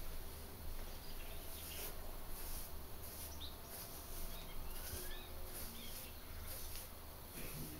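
Outdoor ambience: a few short bird chirps over a low steady hum, with high insect-like pulses repeating every half second or so.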